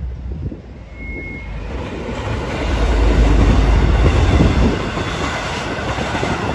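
N-class diesel-electric locomotive N471 hauling a passenger train past. The engine and wheel rumble build to a heavy low peak about three to four and a half seconds in as the locomotive goes by close, then settle into the steady rolling of the carriages.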